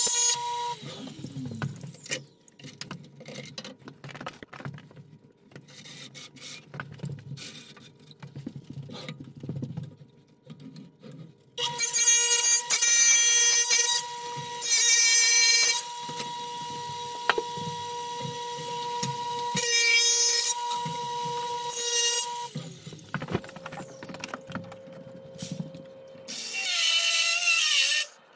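Electric bridge tile saw with a diamond blade cutting a large porcelain tile: the motor whines briefly at the start, then gives way to quieter handling noise. The whine starts again about 12 seconds in, louder in stretches as the blade passes through the tile. It stops with a falling whine around 23 seconds and runs once more just before the end, winding down again.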